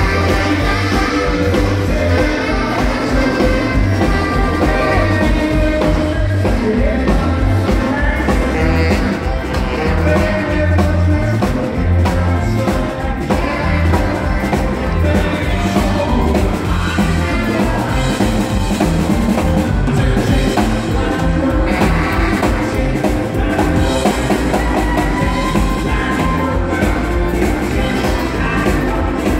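Live band playing rock and roll: a steady drum beat, electric guitar and a singer.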